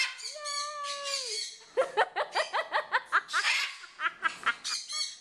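Blue-and-gold macaw calling: one drawn-out, slightly falling call, then a quick run of short rising calls at about five a second, with short noisy bursts from wing flapping in between.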